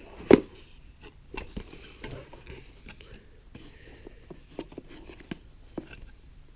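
A phone's retail box and its paper inserts being handled: scattered light taps and paper rustling, with one sharper knock near the start.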